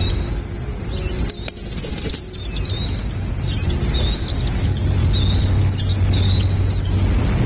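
Birds calling in a series of high, thin, arching whistled notes, about one or two a second, over a steady low rumble.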